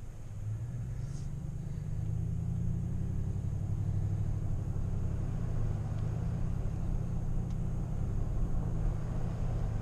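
Car engine and road noise heard from inside the cabin while driving: a steady low rumble that grows a little louder about two seconds in.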